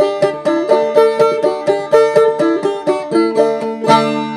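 Banjo played clawhammer style, a steady bouncing run of picked notes. Near the end it closes on a final strummed chord left to ring and fade.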